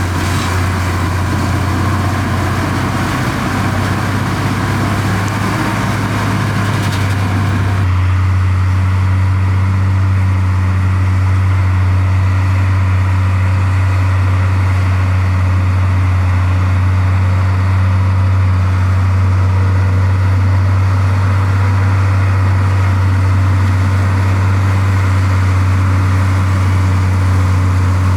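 Heavy diesel engine of earthmoving machinery running steadily with a deep, even hum. About eight seconds in, the higher-pitched clatter drops away abruptly and a lower steady drone remains.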